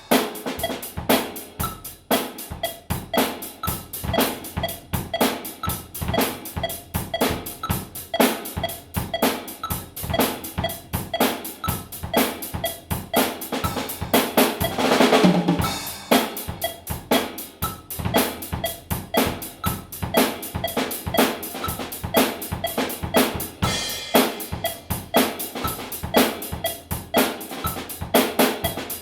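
Drum kit solo: a fast, dense run of snare and bass-drum strokes with rimshots, swelling into louder, busier fills about halfway through and again a little after three quarters of the way.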